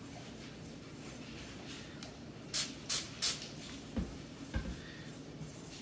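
Three quick hissing spritzes from a trigger spray bottle misting water over semolina flour, followed by two dull low thumps.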